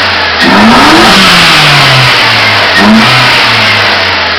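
Mazda Protege four-cylinder engine with an open Spectre cone air filter on its intake, revved hard about half a second in and let fall back, blipped again briefly near three seconds, then settling toward idle.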